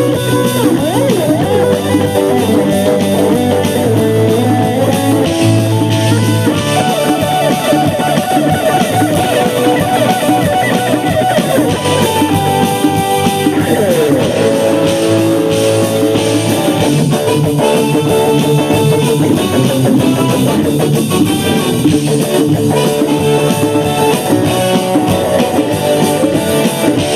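Electric guitar playing a rock solo: sustained notes with pitch bends or slides about a second in and again about halfway through.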